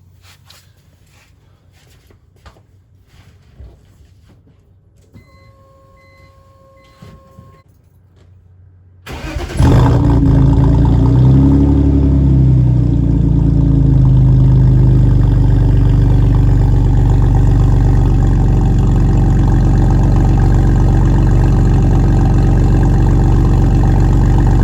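A few soft clicks and a short electronic chime, then about nine seconds in a BMW E46's engine cranks and catches, its pitch rising and falling briefly before it settles into a steady, loud idle.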